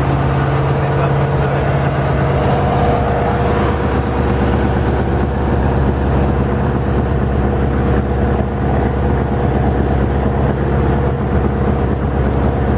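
A boat's engine running steadily at a constant speed while the boat is under way, a continuous hum with a rushing noise over it.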